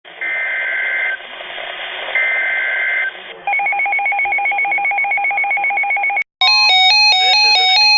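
Emergency Alert System tones received over broadcast radio: two roughly one-second bursts of buzzing digital header data over radio hiss, then a fast pulsing two-tone beeping, and about six seconds in a stepping electronic tone melody starts.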